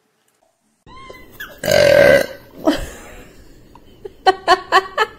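After a second of near silence, a loud burp lasting about half a second. Then a baby laughing in quick rhythmic bursts, about five a second.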